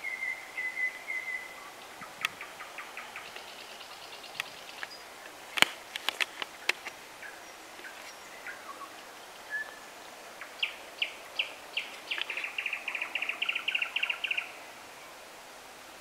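Songbirds singing in the evening: a short trill at the start, scattered quick notes, and a long rapid trill near the end. A single sharp click about six seconds in is the loudest sound.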